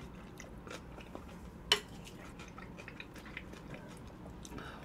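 Faint eating sounds: quiet chewing and light clicks of utensils, with one sharp click of a utensil against a dish a little under two seconds in.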